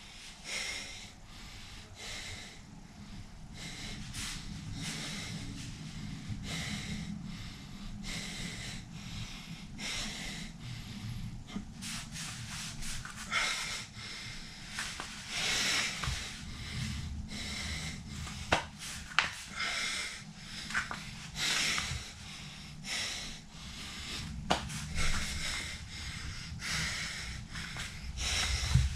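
A man breathing hard and rhythmically through his nose and mouth while holding a plank, one noisy breath every second or two, with a few sharp clicks in the second half.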